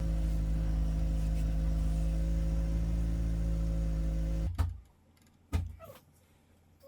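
Car engine idling with a steady low hum, which stops abruptly about four and a half seconds in with a thump, followed by a single sharp knock about a second later.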